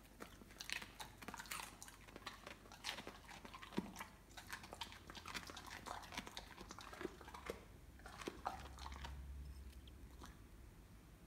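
A Weimaraner crunching and chewing a mouthful of raw cabbage leaf with irregular wet crunches. The crunches die away near the end.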